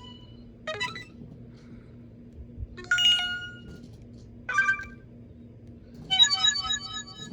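Android 4.0.4 (Ice Cream Sandwich) notification tones played one after another. There are four short electronic chimes, spaced about one and a half to two seconds apart, and the last is a quick run of repeated notes.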